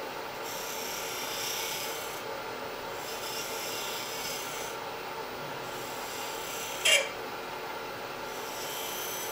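Wood lathe running with a humming motor while a three-point tool, a negative-rake shear scraper, is rolled around a small bead on a spinning spindle, giving a rasping scrape that comes and goes with each pass of the cutting edge. A short, sharp squeak about seven seconds in is the loudest sound.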